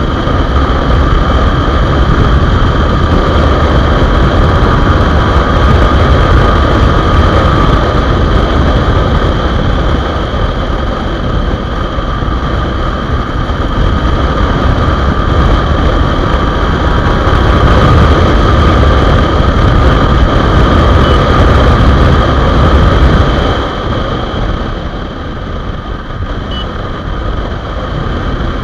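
Motorcycle being ridden hard at speed, wind rushing over the microphone with the engine running under it. The engine's timing chain has just been replaced. The sound eases for a few seconds about three quarters of the way through, then picks up a little.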